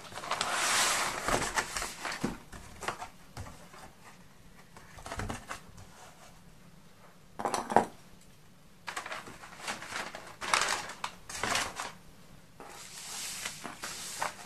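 Crumpled brown kraft packing paper rustling and crinkling in bursts as it is pulled out of a cardboard box and handled, with quieter pauses in between.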